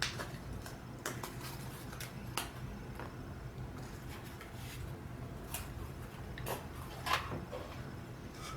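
Guitar effects pedals being handled and set into a Boss BCB60 pedalboard case: scattered light clicks and knocks, about half a dozen, over a low steady hum.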